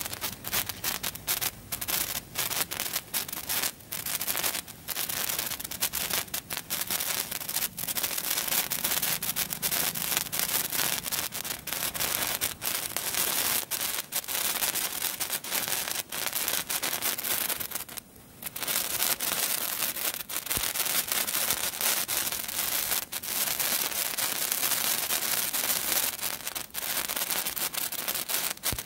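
An Abi's Color 15 cm colour sparkler burning: a continuous crackling fizz of countless tiny spark pops over a hiss, briefly dropping away about two-thirds of the way through.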